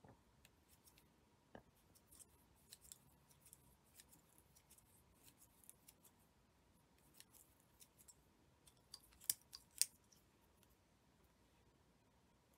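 Faint, scattered clicks and ticks from a tatting shuttle and thread being handled while tatting, with two sharper clicks about nine seconds in.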